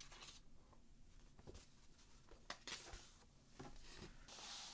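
Near silence, with faint rustles and a few light taps of stiff paper and card sheets being handled and set aside.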